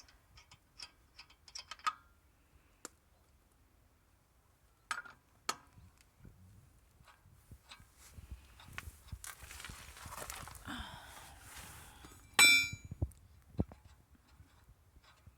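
Metal clinks and taps from handling lug nuts and tools during a car wheel change, with a stretch of scraping about two-thirds in. Near the end comes one loud metallic clang that rings briefly.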